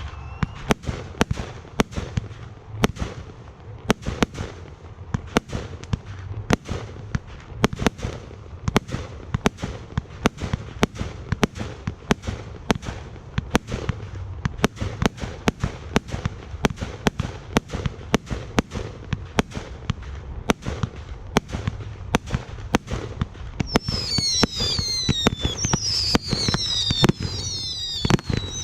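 Aerial fireworks going off in a rapid string of sharp bangs, about two a second, over a low rumble. Near the end several shrill whistles join in, overlapping and falling in pitch.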